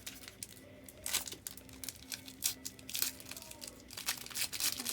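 Trading card pack wrapper crinkling and tearing as it is opened by hand, in several short crackly bursts.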